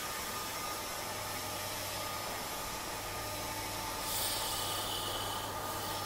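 Cable tray roll forming machine running: its drive motors and turning forming rollers give a steady hum and hiss, with a faint steady whine over them. A brighter hiss swells for about a second and a half from about four seconds in.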